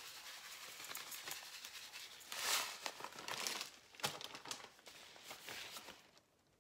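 Plastic bag of isomalt crystals crinkling and rustling in rubber-gloved hands as the crystals are shaken out into a stainless steel pot. The rustling comes in irregular bursts, loudest about two and a half seconds in, and dies away near the end.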